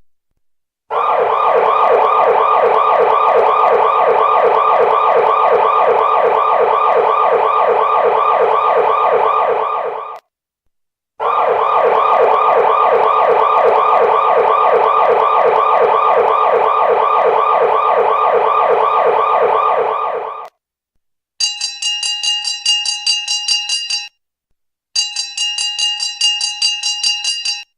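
An electronic siren with fast, repeating up-and-down sweeps sounds twice, about nine seconds each time. Then a different alarm follows: a rapid pulsing ring on several fixed pitches, sounding twice for about three seconds each.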